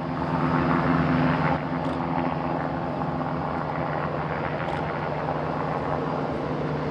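Boeing 787-9 Dreamliner's turbofan engines running at low taxi power: a steady jet hum with a low drone underneath.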